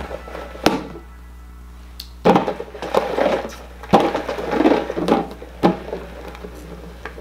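Upturned bowls being slid and shuffled across a tabletop: short scraping swishes with sharp knocks as they are set down, four knocks in all.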